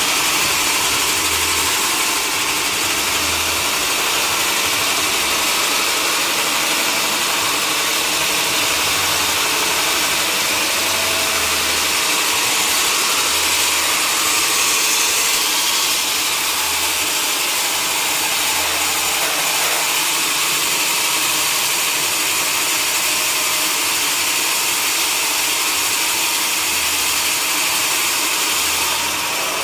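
Sawmill machinery running steadily, giving a constant loud hiss-like noise with faint low pulses underneath.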